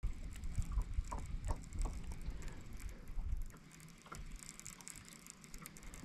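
Baitcasting reel being cranked on a retrieve: a run of small mechanical clicks, with a low rumble under it that drops away after about three and a half seconds.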